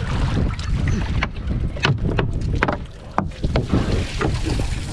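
Wind rumbling on the microphone aboard a small boat, with a string of short, sharp knocks and clicks scattered through.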